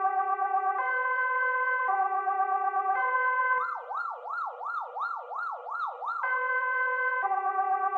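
Swedish police siren, electronic: a two-tone alternating between a high and a low pitch, each held about a second. From a little past the middle it switches for a few seconds to a fast up-and-down yelp, about three sweeps a second, then goes back to the two-tone.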